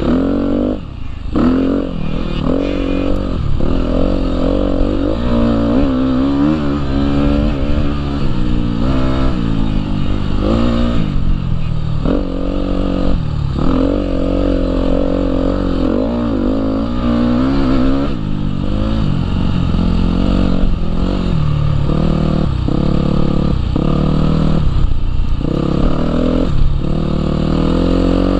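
Husqvarna dirt bike's engine under way, its pitch rising and falling again and again as the throttle is worked through the ride, with a brief drop in level about a second in as the throttle is rolled off.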